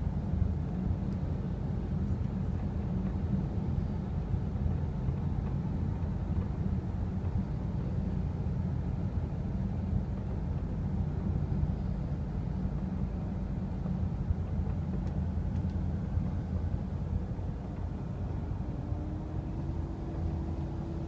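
Car cabin road noise while driving at speed: a steady low rumble of tyres and engine. A faint steady hum joins in near the end.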